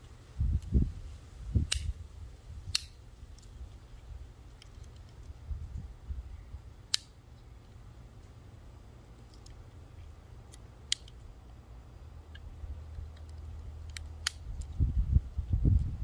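Tools of a Victorinox Deluxe Tinker Swiss Army knife being snapped open and shut against their backsprings: several sharp metallic clicks spread apart, two close together near the end. Low rumbling sounds near the start and end.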